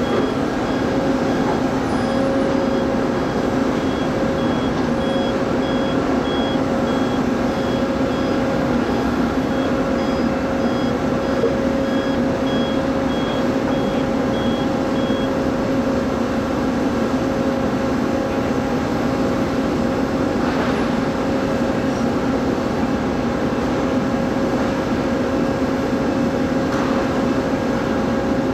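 Steady drone of a heavy truck's diesel engine hauling a low-loader at low speed. A faint high-pitched beeping alarm repeats about twice a second through the first half and starts again near the end.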